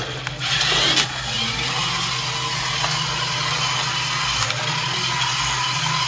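Remote-control model tractor's small electric drive motor and gearbox whirring steadily as it drives and rears up on its rear wheels, with a sharp click about a second in.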